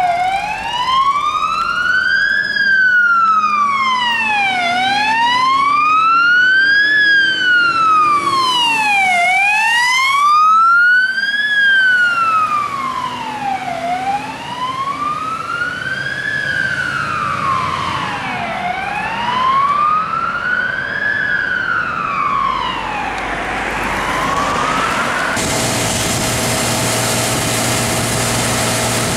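MAN TGM fire engine's wailing siren, rising and falling about every four and a half seconds as the truck drives up. Near the end the siren cuts off suddenly, leaving the truck's engine and pump running with a steady hum.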